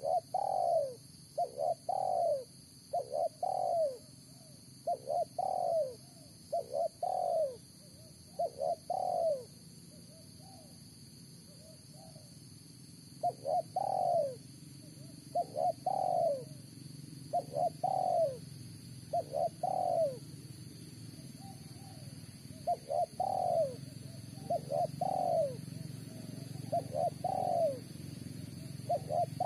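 Spotted dove cooing over and over, short arching coos about one a second in runs of two or three, with a quieter spell of a few seconds midway. A steady high insect buzz runs behind.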